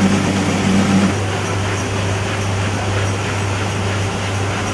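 Steady running noise of bookbinding workshop machinery: a constant low hum under an even whirring hiss. A second, higher steady tone drops out about a second in.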